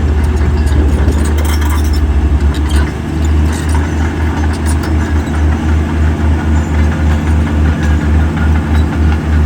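Heavy diesel engine of earthmoving equipment running with a deep, rhythmic throbbing rumble. It is louder and busier in the first three seconds, with a few sharp clanks, then settles into an even throb.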